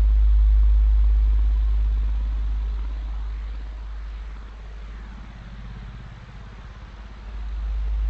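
Synthesized alien radio-signal sound effect: a deep drone that fades through the middle and swells back near the end, with faint sweeping tones above it.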